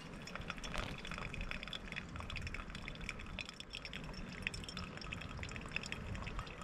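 Water trickling and splashing, a dense, irregular patter of small drips and splashes.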